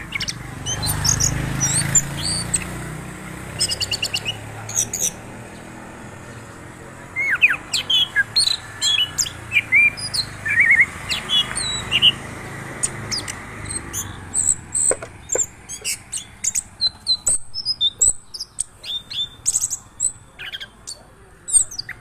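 Caged orange-headed thrush (anis kembang) singing: quick runs of short, high chirps and whistles that come thicker in the second half. A low rumble of handling noise sits under the first few seconds.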